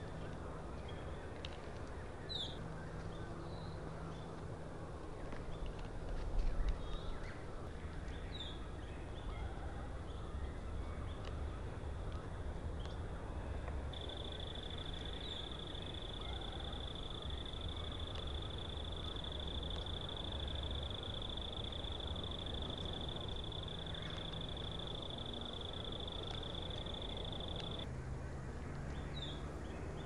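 Outdoor field ambience: a steady low rumble with a few short, falling chirps. About halfway through, an insect starts a long, steady, high-pitched trill on one note that stops shortly before the end.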